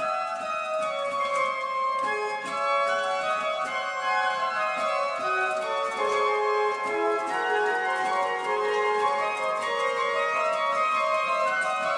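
The 1793 Holzhey pipe organ playing on its trumpet reed stops: a quick-moving melody of steady, changing notes over lower accompanying notes.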